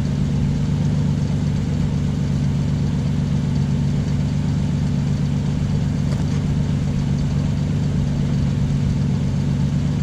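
Ford Ranger pickup's engine idling steadily, an even low hum that doesn't change.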